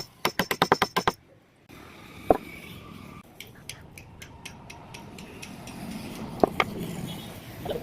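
A quick run of about nine light, sharp taps, then a few single knocks spread out over a low background hiss.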